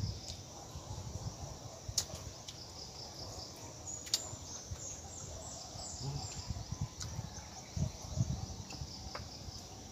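Insects chirring in a steady, pulsing drone, with irregular soft low thumps and a couple of sharp clicks about two and four seconds in.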